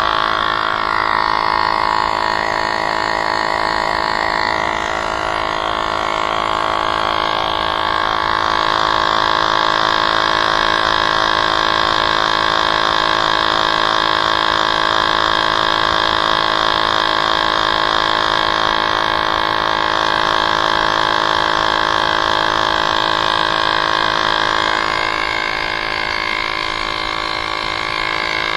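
Small electric tyre inflator running steadily, a buzzing motor hum pumping air into an e-bike's rear tyre.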